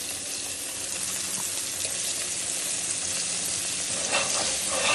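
Flour-dredged chicken pieces deep-frying in hot oil in a shallow metal pan: a steady sizzling hiss, with a few sharper crackles near the end.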